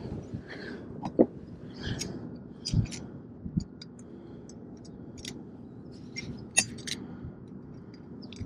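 Soft splashes of water in the first couple of seconds, then scattered light clicks and ticks of fishing tackle being handled aboard a kayak.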